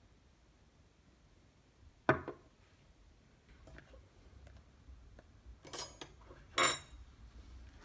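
Kitchenware knocking and clinking on a counter during food preparation: a sharp knock about two seconds in, a few light taps, then two clinks near the end, the last one ringing briefly.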